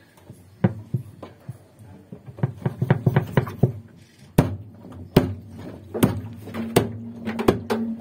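Sharp clicks and knocks of hard plastic and metal parts being handled inside a top-loading washing machine's tub. A quick flurry of clicks comes about two and a half seconds in, then single knocks follow at just under a second apart.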